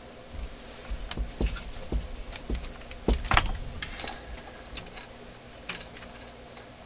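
Clicks and knocks of a plug being pulled out and handled on the chassis: a string of sharp taps, the loudest a little before the middle, dying away near the end.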